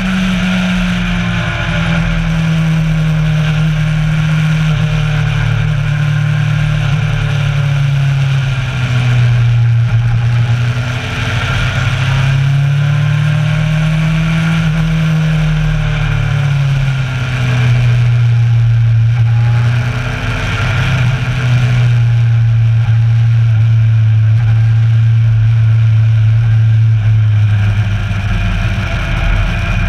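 Kawasaki Versys 1000's inline-four engine running under way at a steady road speed. Its pitch sinks and climbs gently as the throttle is eased off and opened again a couple of times. A steady rush of noise runs underneath.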